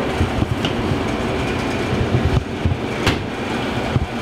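Steady low rumbling background noise, with two sharp clicks: one just after the start and one about three seconds in.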